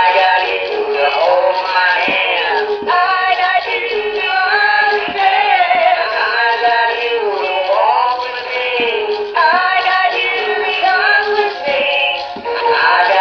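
Singing Westies animatronic plush dog toys singing a duet over a recorded music backing, played from their built-in speaker.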